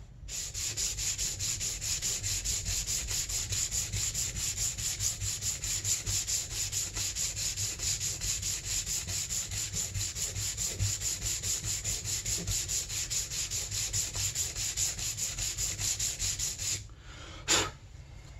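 220-grit sandpaper on a hand sanding block rubbed back and forth in quick, even strokes across the top of a powder-coated aluminium snowmobile cylinder head, flattening it back to a fine finish. The sanding stops near the end, and then there is a single sharp knock.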